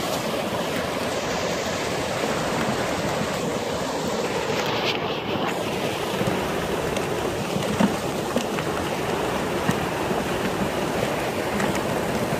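Steady rush of water pouring from inlet spouts into concrete trout raceways, with a couple of brief sharp knocks or splashes about five and eight seconds in.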